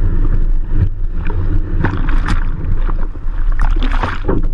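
Rushing whitewater with a steady low rumble of wind buffeting a camera mounted on the board, broken by several short splashes.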